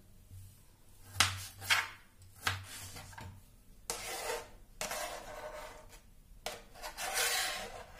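Kitchen knife cutting tomato on a plastic cutting board: three sharp taps of the blade on the board in the first few seconds. In the second half the blade scrapes the chopped tomato across the board in three longer strokes, pushing it into a glass bowl.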